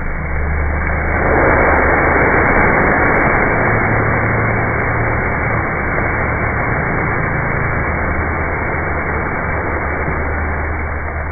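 A large fireball of ghee burning in a Pravargya fire ritual: a loud, steady rushing hiss of flame that sets in about a second in, is loudest soon after, and carries on. A low steady hum lies underneath.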